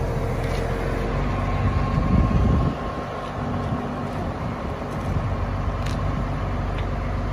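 Farm tractor engine idling steadily, with a brief louder rumble about two seconds in.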